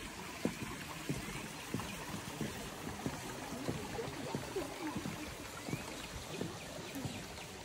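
Footsteps walking on a concrete path, about one and a half steps a second, over a steady rushing background.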